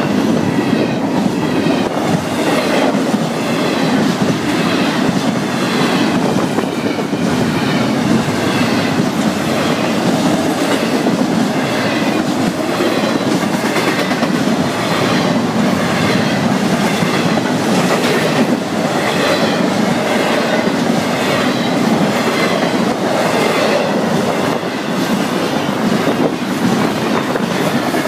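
Intermodal freight train cars rolling steadily past: a continuous rush of steel wheels on rail with a rhythmic clickety-clack.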